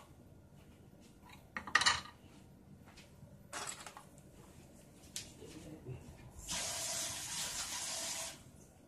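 Kitchen handling sounds: a short clatter as a wire whisk is set down on a wooden cutting board, a few light knocks, then a steady hiss lasting nearly two seconds near the end.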